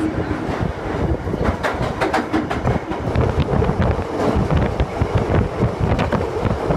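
London Underground train running at speed, heard from inside the carriage: a loud rumble with constant rattling and clattering from the wheels and car body, and air rushing in through an open ventilation window.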